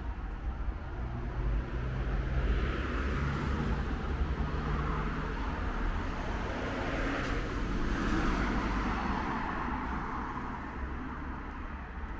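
Street traffic: cars passing on a city boulevard, tyre and engine noise swelling about two seconds in and again around eight seconds, over a steady low rumble.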